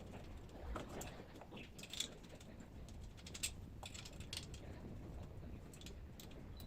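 Scattered light clicks and taps of a steel bed frame's parts being handled and fitted together, with two sharper ticks about two and three and a half seconds in.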